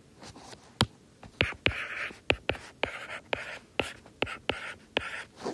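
Stylus writing on a tablet: a dozen or so sharp taps as the tip touches down, with short scratchy strokes between them as the figures are written.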